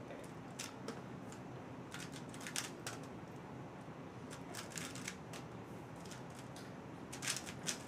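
A WRM 2019 speedcube being turned fast by hand: its plastic layers click and clack in several quick runs, with short pauses between them.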